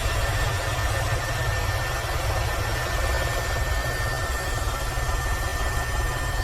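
H130 EcoStar helicopter running steadily: a fast low rotor flutter under a constant high whine from its single turboshaft and gearbox.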